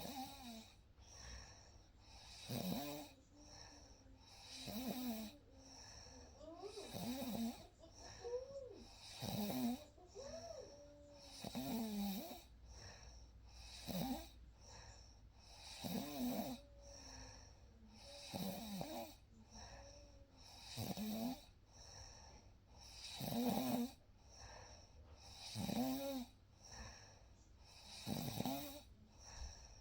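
A person snoring in a steady rhythm, one snore about every two and a half seconds, each with a wavering pitched rattle.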